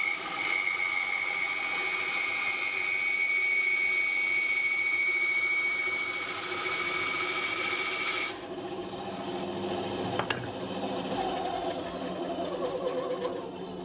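Titan bandsaw running with a newly fitted blade, cutting through a wooden board with a steady high whine. About eight seconds in the whine cuts off abruptly, leaving a lower, wavering hum and a single click a couple of seconds later.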